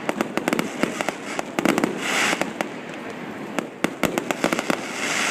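Fireworks display: quick clusters of sharp cracks and pops, with bursts of hissing crackle about two seconds in and again near the end.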